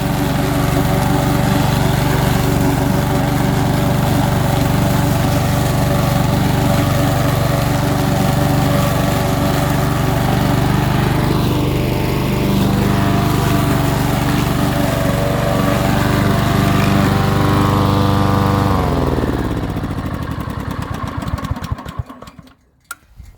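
Single-cylinder 6.5 hp Loncin engine on a mulching rotary mower, running steadily at a fixed speed. About 18 to 19 seconds in it is shut off and spins down, its pitch falling over a few seconds until it stops.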